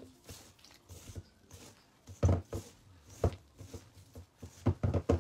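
Gloved hands squishing and working wet bread dough of flour, butter, sugar, yeast and water in a metal mixing bowl. It is a run of irregular soft squelches and thuds, loudest about two seconds in and in a quick cluster near the end.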